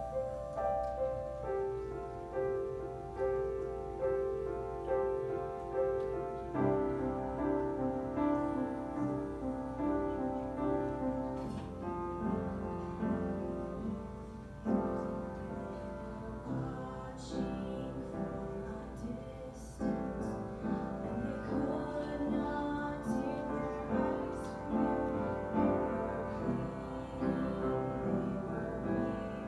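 Piano-led instrumental introduction of a gospel song, a steady pattern of ringing chords that fills out with lower notes about six seconds in.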